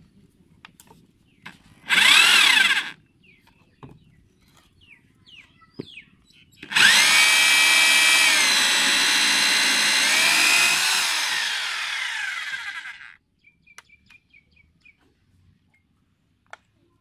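Corded electric drill fitted with a hole saw: a brief spin of about a second, then a run of about six seconds cutting a hole through a plastic pipe. Its whine sags in pitch for a moment midway and winds down at the end.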